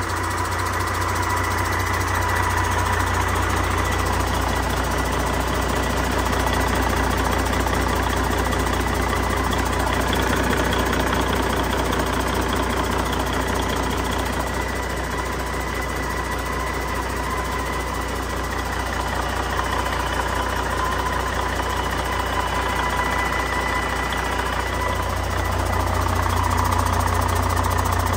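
2014 Detroit Diesel DD15 14.8-litre inline-six diesel engine idling steadily.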